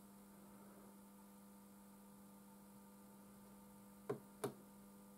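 Near silence with a steady low electrical mains hum, and two short clicks about four seconds in.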